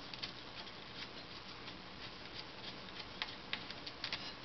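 Faint scattered clicks and light taps from fingers turning out a small screw and handling a Briggs & Stratton updraft carburetor, with a few sharper ticks near the end.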